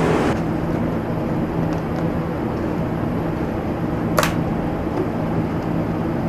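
Spray booth ventilation fan running steadily, a constant rushing noise with a low hum under it. A single short click about four seconds in.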